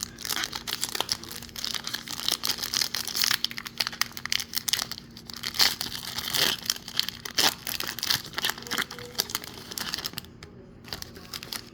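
Foil wrapper of a baseball card pack being torn open and crinkled by hand, dense crackling with many small clicks that eases off near the end.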